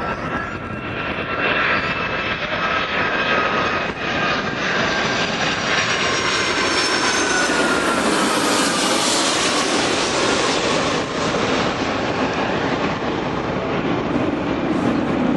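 Jet airliner passing low overhead: its engine whine slides down in pitch as it goes by, under a steady rushing noise that is loudest a little past halfway.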